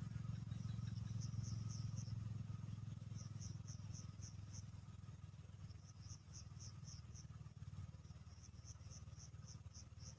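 Insects chirping in short runs of quick, evenly spaced high pulses, about four a second, with pauses between runs, over a low steady rumble that eases off after the middle.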